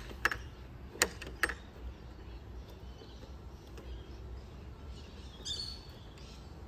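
Lockable gate latch on a PVC gate clicking as it is worked and tested: four sharp clicks in the first second and a half, then only faint outdoor background.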